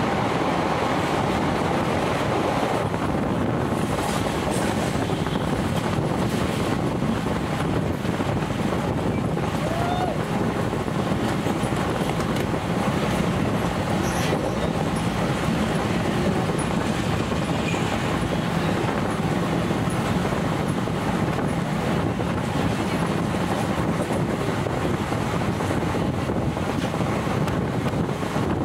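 Passenger train running along the track, a steady running noise of wheels and coaches.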